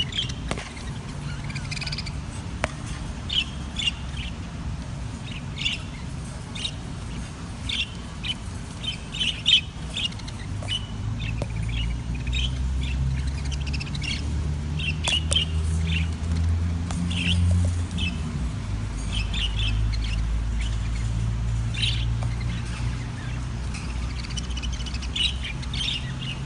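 Budgerigars chirping and squawking in short, scattered calls over a steady low hum.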